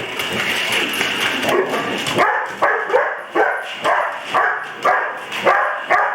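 Dog barking over and over, about three barks a second from about two seconds in, with a steady noise beneath the first two seconds.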